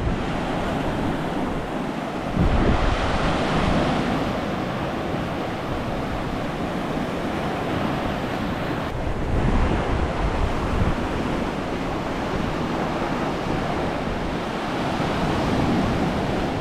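Small sea waves breaking and washing up a sandy, rocky beach, swelling louder as each wave comes in, with wind rumbling on the microphone.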